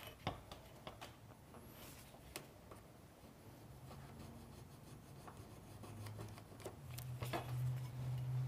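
Pencil drawing a line along a speed square on painted metal valley flashing, with faint scraping and light clicks of the square on the panel. A low hum comes up in the second half.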